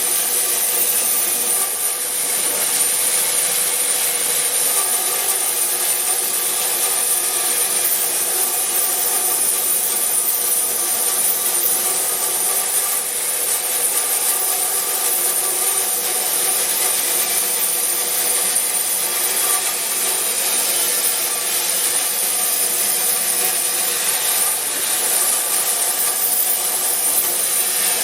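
A 36-inch resaw band saw, converted to a 3 hp single-phase motor and slowed through a jackshaft, running steadily while its blade cuts through wood, with a steady high whine over the cutting noise.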